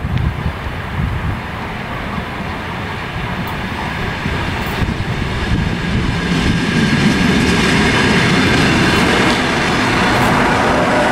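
ER2M electric multiple unit pulling away from a station and running past close by. Rumble and clatter of wheels on rail grow louder until about seven seconds in, then hold steady. From about six seconds a steady whine from its traction motors and gears rises with them.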